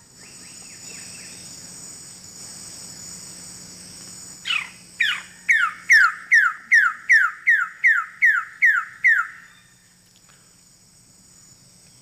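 A male Wilson's bird of paradise calls a loud series of about a dozen sharply down-slurred notes: two spaced notes, then about ten in quick, even succession at a little over two a second. Forest insects drone high and steady underneath.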